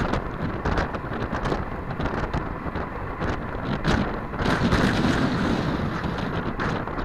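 Wind buffeting the microphone of a bike-mounted camera riding at speed, a steady rumbling roar that swells for about a second midway.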